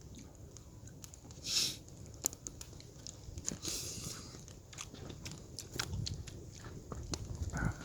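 A person eating oyster ramen: two slurps of noodles, a short one about one and a half seconds in and a longer one around four seconds, between chewing and small clicks.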